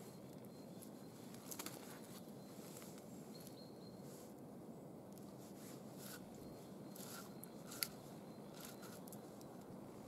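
Faint rustling and scattered small clicks of a cord being wound around a tree trunk and the log posts lashed to it, with one sharper click about eight seconds in, over a steady low outdoor hiss.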